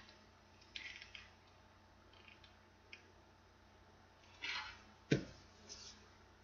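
Handling sounds of folded paper origami pieces being glued with a hot glue gun: light rustles and small clicks, then a louder rustle and a single knock about five seconds in as the piece is set down on the board. A faint steady hum runs underneath.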